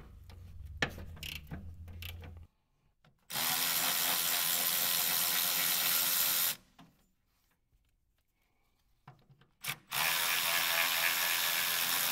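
Handheld power drill or driver running in two steady bursts of about three seconds each, a few seconds apart, with a few clicks of handling before and between them.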